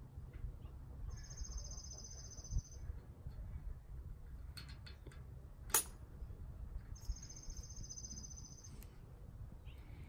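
Two high, rapid trills from a small wild animal, each lasting under two seconds and about four seconds apart, over a steady low rumble. A single sharp click sounds just before the second trill.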